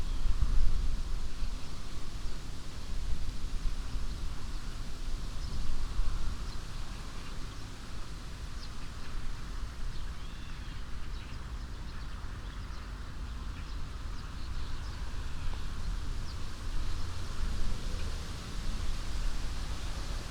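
Wind blowing through the leaves of an old alder tree, a rustling that swells and eases, over a low rumble of wind on the microphone. A few faint, short high chirps, most of them in the middle and later part.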